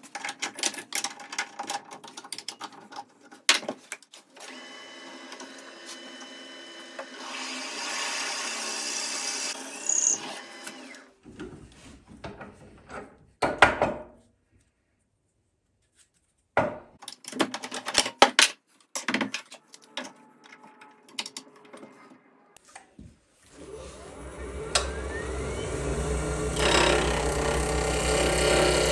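Clicks, knocks and handling as a resin-and-wood duck call blank is fitted and tightened in a wood lathe's chuck, with a few seconds of steady machine running in the first half. About 23 seconds in the lathe motor starts and comes up to a steady hum, and a turning tool begins cutting the spinning blank with a loud scraping rasp.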